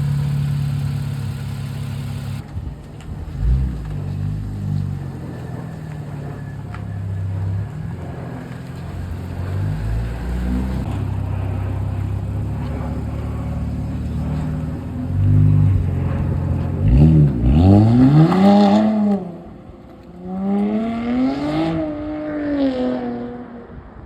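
Infiniti Q60's tuned 3.0-litre twin-turbo VR30 V6 running under way, its pitch shifting up and down as the car drives. Near the end it revs up hard and falls back twice.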